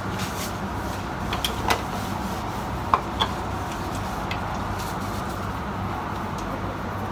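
Steady low background hum with a few light clicks and knocks of kitchen items being handled, a cluster about a second and a half in and two more about three seconds in.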